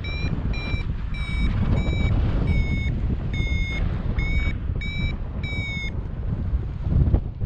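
Paragliding variometer beeping, about two short beeps a second at a steady pitch, then falling silent about six seconds in. The beeping is the vario's climb tone, signalling that the glider is briefly in rising air. Wind noise on the microphone rumbles underneath.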